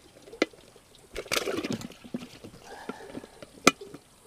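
Bluegill splashing and thrashing in a bucket of water for about half a second, with a sharp knock before it and another near the end.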